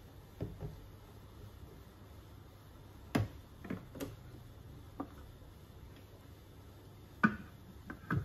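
Thermomix TM6 plastic lid being handled and fitted onto the stainless steel mixing bowl: a string of light, separate knocks and clicks, the sharpest one near the end as the lid is pressed down into place.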